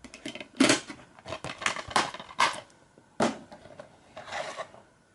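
Plastic DVD case being handled: a series of sharp clicks and snaps, then a short scraping rustle about four seconds in.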